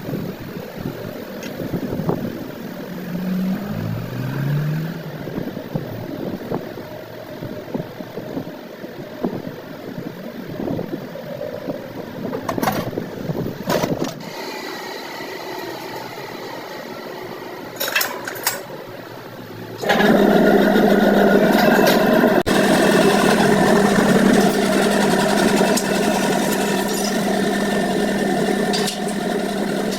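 Irregular workshop clatter and clicks, then about twenty seconds in a motor starts abruptly and runs with a steady hum.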